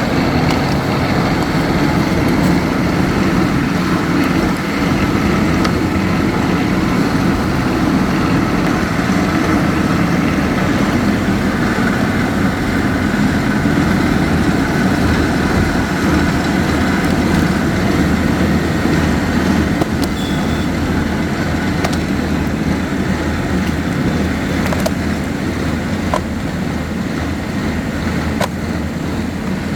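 Heavy rock-drilling machinery running steadily, a continuous engine drone with a few faint clicks late on.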